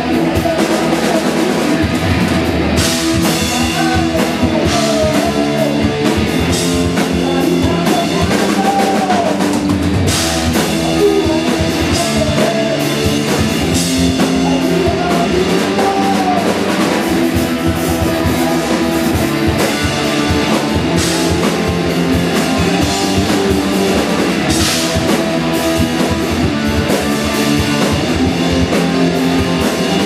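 Live rock band playing: electric guitars, bass guitar and drum kit.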